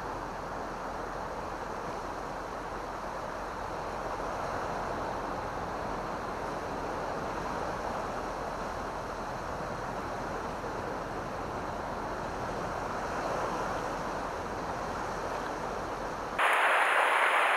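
Ocean surf washing over and around shoreline rocks, a steady rushing noise with slow swells. About a second before the end it jumps suddenly much louder and closer.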